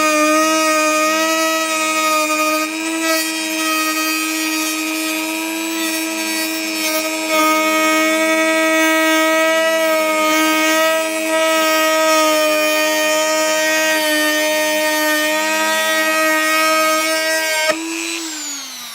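Dremel rotary tool running at high speed with a steady, loud whine as it trims the edges of a 2–3 mm ABS plastic panel, the pitch wavering slightly as it bites. Near the end it is switched off and the whine falls in pitch as the motor spins down.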